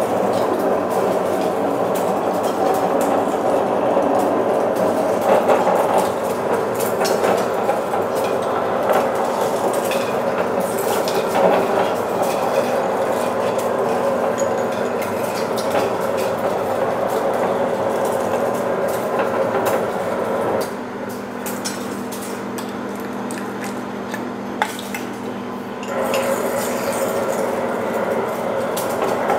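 Large twist drill cutting into a steel sprocket on a Monarch engine lathe: the lathe running with a steady cutting grind and many small metallic clicks. The cutting noise drops away for about five seconds past the two-thirds mark while the lathe keeps running, then picks up again.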